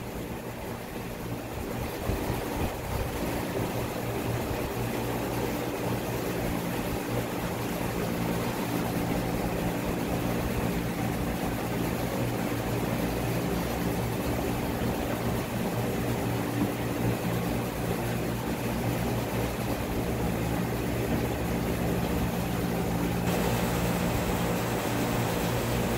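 Steady mechanical drone with a low hum, running evenly throughout.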